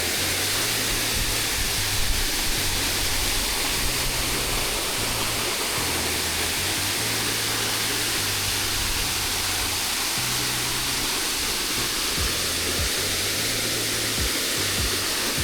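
Steady, loud rush of a large waterfall, with background music whose low bass notes change every second or so.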